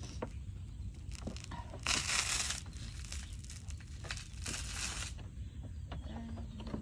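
Plastic scraping and rustling as the license plate lamp housing is pushed and angled into its opening in the rear bumper: two short scrapes, about two seconds and four and a half seconds in, with faint clicks between, over a low steady rumble.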